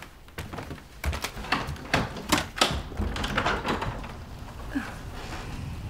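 A quick, irregular flurry of knocks, clicks and low thumps, thickest between about one and four seconds in, then dying down.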